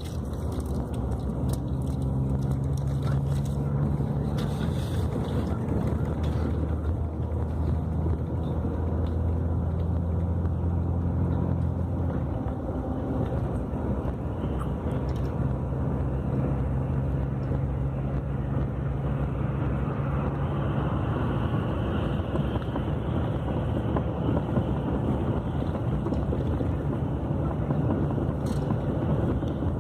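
Scania K400 bus's diesel engine running with a continuous drone, its pitch stepping down and back up a few times as the engine speed changes.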